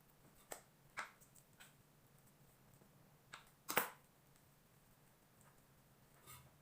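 A few faint, scattered taps and clicks of a knife or dough cutter on the work surface as paratha dough is cut into portions and the pieces are set down, the loudest a little under four seconds in.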